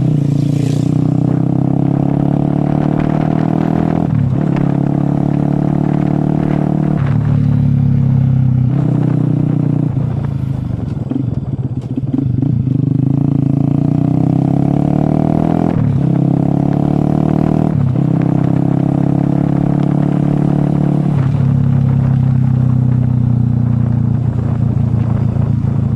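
Motorcycle engine running under way, its pitch climbing and dropping back several times.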